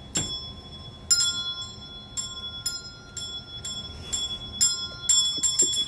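Handbells rung one after another, about a dozen strikes at uneven spacing, several different pitches ringing on and overlapping; the strikes come faster near the end.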